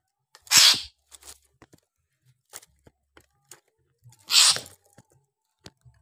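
Caged Javan myna giving two short, harsh hissing calls about four seconds apart, with light clicks and taps in the cage between them.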